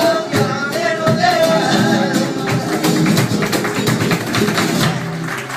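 Live flamenco music: a singer's wavering voice over guitar, with sharp percussive strikes throughout and a low held note near the end.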